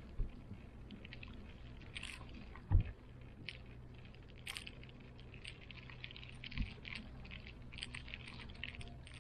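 Ride inside a moving gondola cable car cabin: a steady low hum with scattered light ticks and rattles, and one dull knock about three seconds in.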